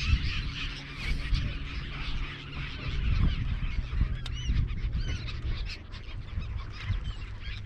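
A flock of gulls calling over the water, many short calls overlapping one another. A low steady hum and rumble run underneath.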